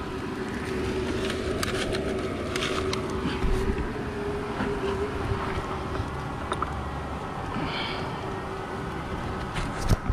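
A mass of giant honeybees (ong khoái) buzzing in a steady drone around their exposed comb, with wind rumbling on the microphone and scattered small clicks and knocks.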